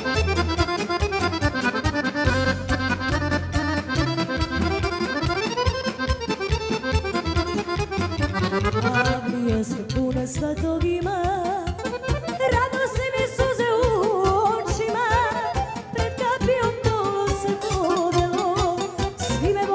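Instrumental Serbian folk band music, with an accordion-led melody over a steady, pulsing bass beat. For the first half the melody runs in fast notes; from about nine seconds in it turns to slower, wavering held notes.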